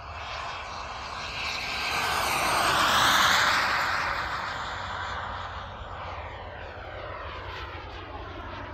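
Pirotti Rebel Classic radio-controlled jet model flying a low pass: its engine noise swells to its loudest about three seconds in, then drops in pitch and fades as the model pulls up into a vertical climb.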